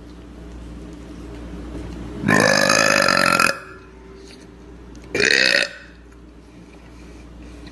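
A woman burping twice, loudly: a long burp about two seconds in, then a shorter one about five seconds in.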